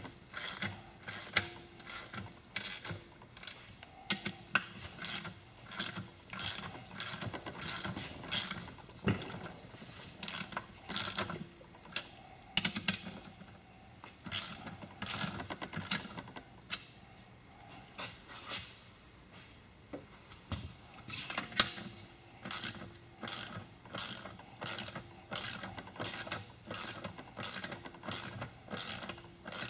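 Ratchet wrench clicking in runs of quick, even clicks, with a short lull a little past the middle. It is running lock nuts down onto the main studs of an Aerovee engine case to seat them, without torquing them yet.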